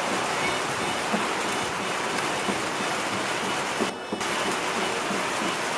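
A steady rushing hiss of noise that drops out briefly about four seconds in.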